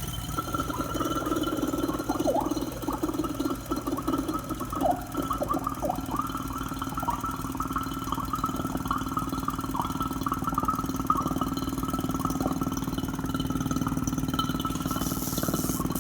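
Electric vacuum pump running steadily with a fast, even pulsing as it draws the air out of a sealed glass vacuum chamber, lowering the pressure inside. Irregular gurgling sounds over the first several seconds.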